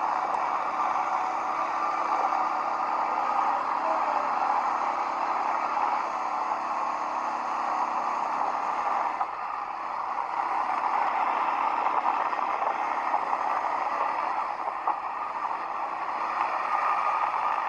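ATV engine running under way, a steady engine note that eases off briefly about halfway through and then builds again.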